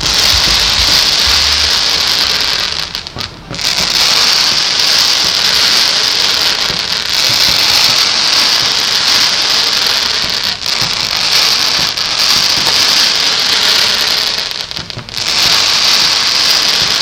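Fireworks crackling and hissing as a dense, nearly continuous noise, with brief lulls about three seconds in and again near fifteen seconds.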